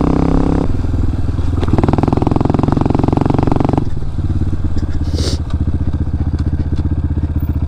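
Honda CRF230F dirt bike's air-cooled single-cylinder four-stroke engine running under throttle, easing off briefly near the start and pulling again, then dropping to a steady idle about four seconds in.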